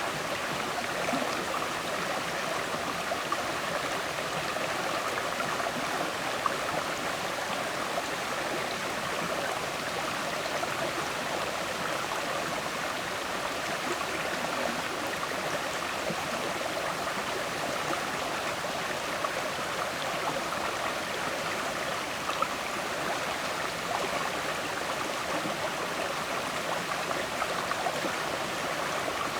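River water flowing and gurgling over stones: a steady rush with small splashes and droplet ticks scattered through it.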